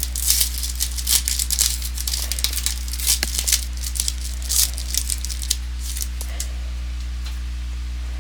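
Sports trading cards and their pack wrapper being handled: quick papery flicks, ticks and crinkles that stop about six and a half seconds in. Under them runs a steady low electrical hum.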